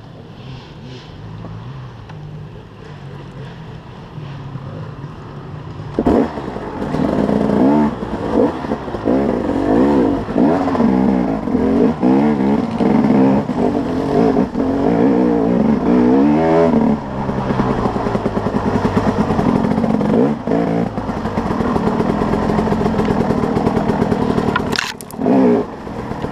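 A 2011 KTM 300 XC-W's two-stroke single-cylinder engine being ridden off-road. It is quieter at first, then loud from about six seconds in, with the pitch rising and falling again and again as the throttle is worked, and running steadier later on.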